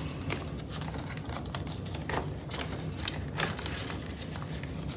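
Light rustling and scattered small clicks of banknotes and a clear plastic binder pocket being handled, with a few sharper ticks near the middle, over a faint low hum.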